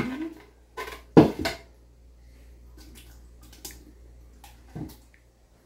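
Metal spoon scraping passion fruit pulp out of the halved fruit and knocking against the rim of a plastic blender jar: a few sharp knocks, the loudest a little over a second in, with a last one near the end.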